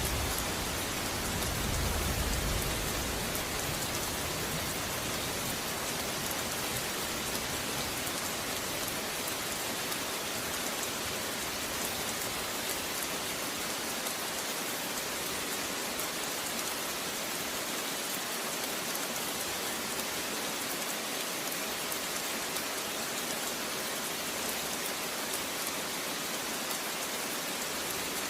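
Steady, dense rain falling, an even hiss of many drops. A low rumble at the start dies away within the first three seconds.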